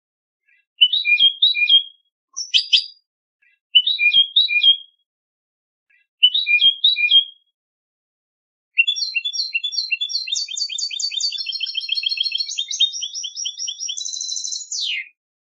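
European goldfinch singing contest-style song: four short twittering phrases with pauses between them, then a long run of rapid repeated trilled notes that ends in a falling note.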